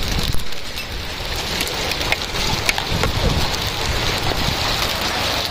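Hail coming down steadily, hailstones ticking sharply on hard surfaces over a steady patter, with a low rumble underneath.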